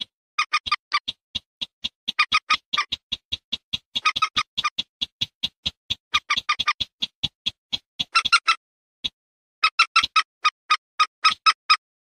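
Lure recording of rail calls, common moorhen and sintar semak: fast runs of short, sharp repeated notes, several a second, broken by brief pauses.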